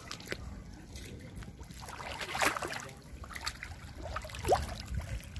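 Shallow seawater trickling and sloshing softly around someone wading, over a low steady rumble. Two brief faint chirp-like sounds come about halfway through and near the end.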